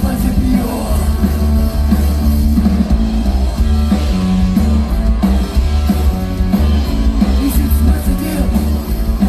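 Rock band playing live: electric bass holding heavy sustained notes under electric guitar, with a man singing over it.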